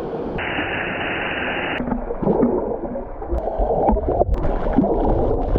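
Water rushing and gurgling at a waterfall, with a steady high hiss lasting about a second and a half near the start. Irregular splashes and knocks follow in the second half.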